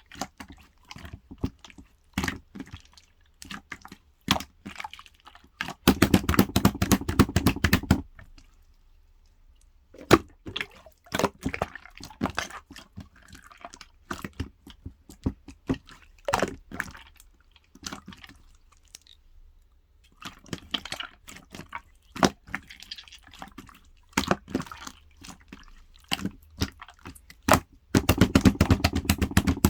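Clear slime being pressed and worked by hand: scattered wet, sticky clicks and pops, with two stretches of fast rapid popping, one about six seconds in lasting two seconds and one near the end.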